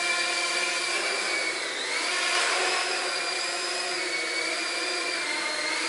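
Small quadcopter drone's electric motors and propellers whining in flight. The pitch rises about two seconds in, then eases and climbs again as the throttle changes.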